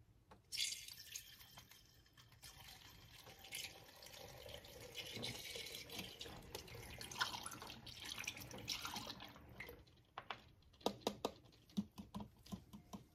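Engine coolant being poured from a bottle through a plastic funnel into an aluminium expansion tank, trickling steadily for several seconds. A few light clicks near the end.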